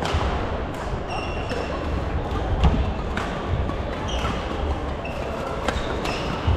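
Badminton rally: sharp clicks of rackets striking the shuttlecock about every second, with short high squeaks of shoes on the wooden court floor, over a steady low hum of the large sports hall.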